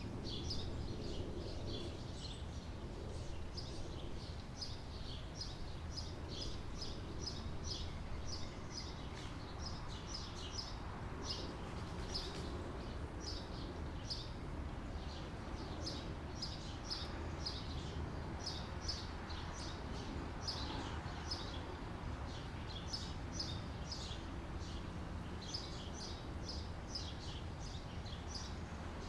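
Summer outdoor ambience: small birds chirping, a steady run of short high notes coming several to the second in clusters, over a constant low background rumble.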